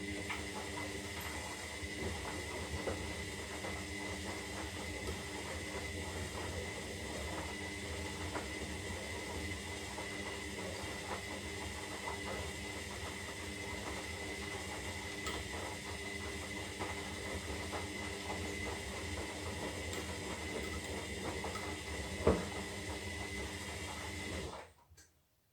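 Zanussi Lindo 300 washing machine running steadily during its synthetic wash cycle, a continuous mechanical hum with a high steady tone and a patter of small ticks. There is one sharp knock about 22 seconds in, and the machine stops abruptly shortly before the end.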